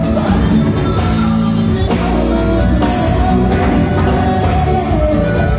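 Live cumbia band playing amplified through a PA: electric guitars over a drum kit with a steady beat.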